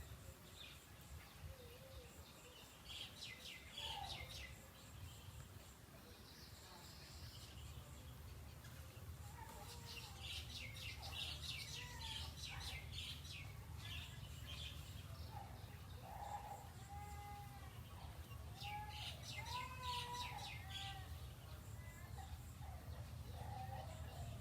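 Small birds chirping in three bursts of rapid high notes, with some lower calls in between, over a steady low rumble.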